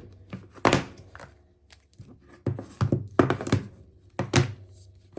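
A string of knocks and thuds at uneven spacing, about ten in a few seconds, each sharp at the start with a short low ring after it.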